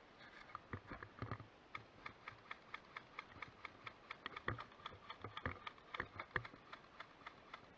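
Rapid, regular plastic clicking, about four clicks a second, from an airsoft gun being handled, with a few louder knocks about halfway through.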